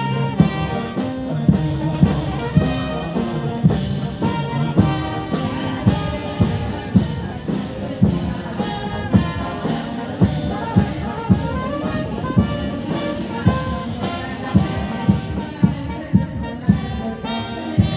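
Military brass band playing a march, brass melody over a steady drum beat.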